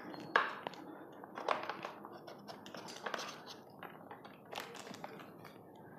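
Hard plastic clicking, knocking and scraping as an RC truck's electronic speed controller is worked loose from its tight plastic mounting bracket, with a sharper knock about a third of a second in.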